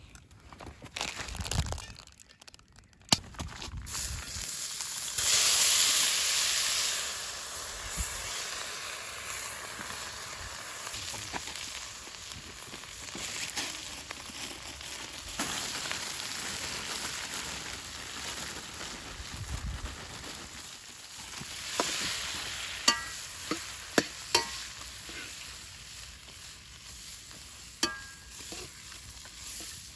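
Food sizzling in a hot iron wok, with a loud surge of sizzle about five seconds in, then steady frying. There are a few sharp clicks in the second half.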